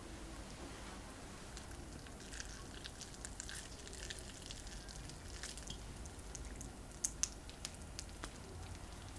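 Crisp, cheese-topped potato crust crackling and squishing as a baked potato roll is squeezed and torn open by hand. A run of small crackles comes through, with a couple of sharper cracks about seven seconds in.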